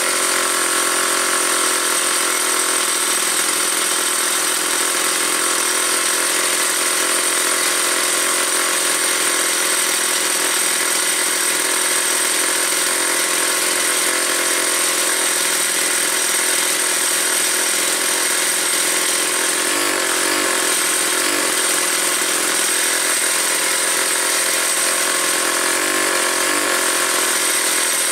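Vintage McCulloch 250 two-stroke chainsaw engine running at a steady speed, with no revving.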